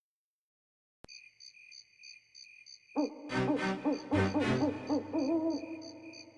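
Background music starting after a second of silence: a click, then a high pulsing electronic tone about three beats a second, joined about three seconds in by a louder low melody of wavering, bending tones.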